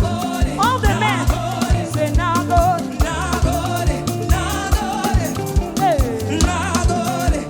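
Upbeat live gospel praise music: a band with a steady drum beat and bass line, with voices singing wavering melodic lines over it.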